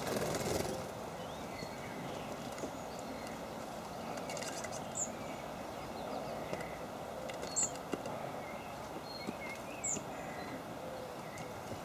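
Small songbirds calling with short, high chirps, three louder ones spaced a few seconds apart and fainter calls between, over a steady outdoor background hiss.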